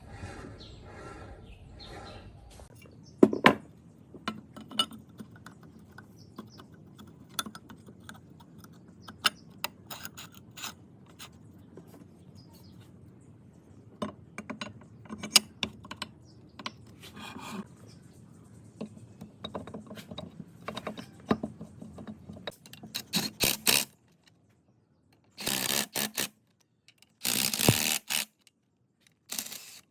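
Workshop handling sounds: scattered clicks, taps and knocks of parts being worked on, with a quick run of clicks and then three short hissing bursts near the end.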